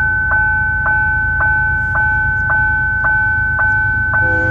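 Level-crossing warning bell ringing, about two strokes a second, with a steady high ring between strokes and a low rumble underneath. Near the end a lower chord of steady tones joins in.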